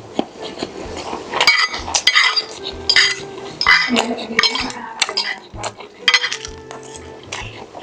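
Cutlery clinking and scraping against a plate during a meal: a quick, irregular run of sharp clinks.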